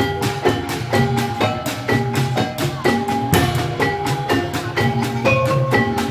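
Live incling (Javanese jaranan) accompaniment: pitched struck percussion ringing out a quick repeating pattern of notes over drums.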